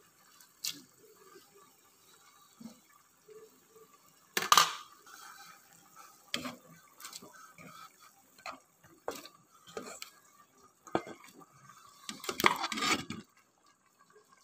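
Parboiled fusilli pasta tipped from a metal bowl into a pressure cooker of bubbling coconut-milk gravy: wet plops and splashes with scattered metal clinks against the cooker. The loudest comes about four and a half seconds in, with a busy cluster near the end.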